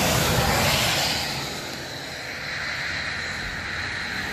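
A vehicle passing on the road, with engine and tyre noise that swells to a peak about half a second in and fades over the next second, leaving a steady background hiss.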